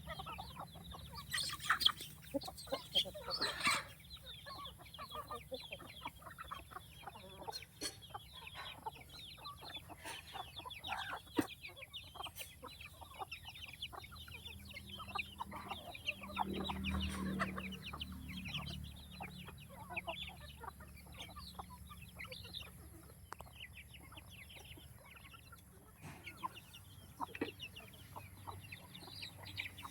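A flock of chickens clucking continually with many short overlapping calls. A few louder, sharper calls come early on, and a lower, fuller call about halfway through.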